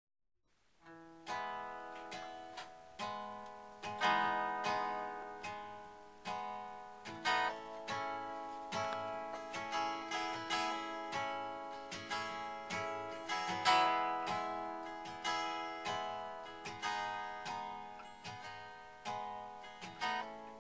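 Acoustic guitar strummed in a slow, steady rhythm, each chord ringing and fading before the next: the instrumental opening of a folk song.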